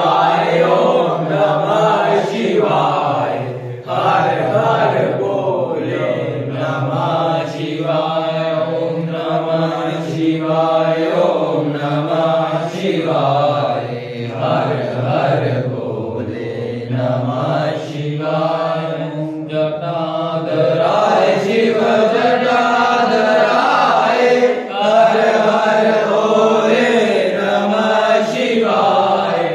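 A group of voices, men and a boy, chanting a Hindu devotional bhajan together, continuous sung lines held and drawn out.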